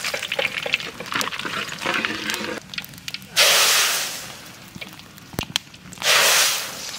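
Mustard seeds and whole dried red chillies crackling and spitting in hot mustard oil. Then two loud sizzling hisses, about three and a half and six seconds in, each fading away: the hot tempering (phoron) is poured into a big pot of boiled masoor dal.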